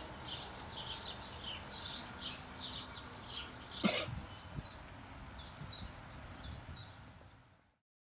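Small birds chirping in quick short notes over a low outdoor background noise, with one sharp knock about four seconds in; the sound fades out near the end.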